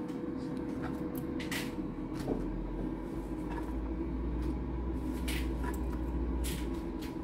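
Steady hum of a countertop air fryer running, with scattered soft taps and clicks as chopped celery pieces are picked up off a wooden cutting board and dropped into a bowl.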